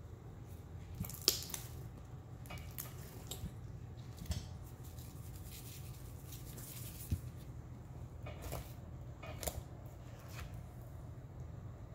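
Blue glitter slime made from Elmer's glue being kneaded and pressed by hand in a bowl: scattered sticky clicks and squishes, the sharpest about a second in, over a steady low hum.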